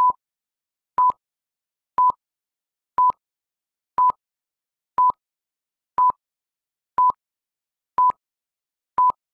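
An electronic countdown timer beeping: ten short, identical beeps at one steady pitch, evenly spaced one second apart, with silence between them.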